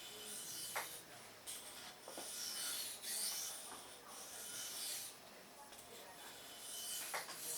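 A knife blade's VG-10 steel edge is stroked across a wet 1000-grit whetstone in a series of faint, irregular, rasping strokes.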